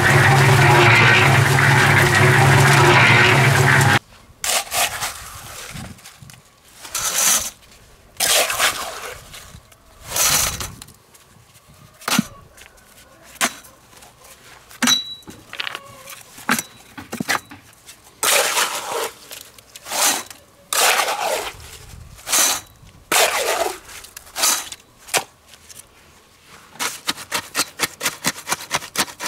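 A machine running steadily with a low hum stops abruptly a few seconds in. Scattered knocks, scrapes and clicks of handling and work follow, then a fast, even run of clicks near the end.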